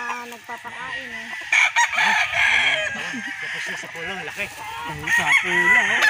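Gamecocks crowing: one long crow starts about a second and a half in, and another comes near the end.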